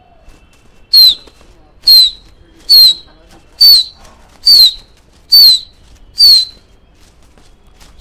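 A pigeon fancier whistling: a short, sharp, slightly falling note, repeated about once a second, seven times. This is the kind of whistle used in kabootarbazi to signal a flying flock.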